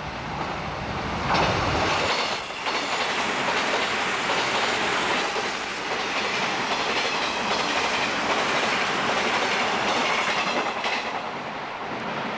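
JNR 583 series electric limited express train passing close by at speed. A low rumble swells into a loud rush of wheels on rail about a second in, holds steadily as the cars go by, and eases near the end as the train moves away.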